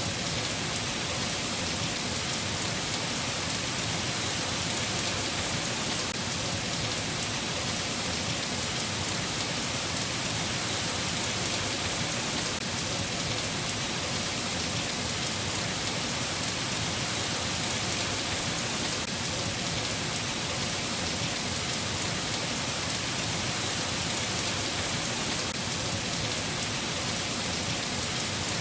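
Steady rain, an even hiss that does not change or break.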